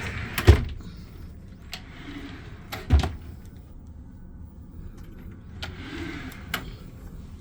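Closet doors being handled: sliding with a rubbing hiss and knocking against their stops, two sharp knocks about two and a half seconds apart, then a softer slide near the end.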